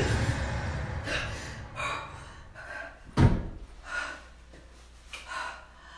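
A rushing noise dying away, a few short breathy sounds, and one loud, deep thump about three seconds in.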